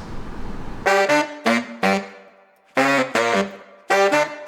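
Background music of short, punchy saxophone notes in quick clusters, starting about a second in.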